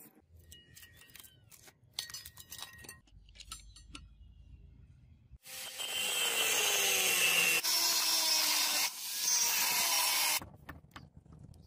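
Angle grinder with an abrasive cut-off disc cutting through iron plate, starting about five seconds in. Its whine drops as the disc bites, it eases off briefly, and it stops sharply near the end. Before it, only faint clicks and taps.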